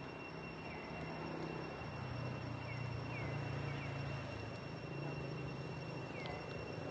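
Outdoor ambience: a steady, high-pitched insect drone, with a few short, falling chirps and a low hum that swells in the middle.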